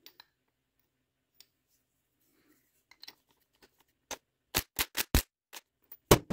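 Cordless impact driver run in short bursts with a socket on the delivery valve holders of a Kubota D722's three-cylinder injection pump, loosening them. Faint clicks of the tool and parts being handled come first; the bursts start about four seconds in, with a quick cluster around five seconds and one more near the end.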